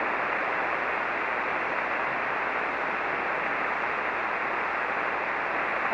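Shortwave receiver hiss: steady band noise on 40-metre single sideband, cut off sharply above the narrow voice passband. No station's voice comes through; the expected reply is not being heard.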